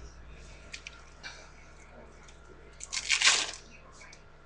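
Mustard squeezed from a squeeze bottle: a loud, hissing squirt of about half a second, about three seconds in, with a few faint clicks before it.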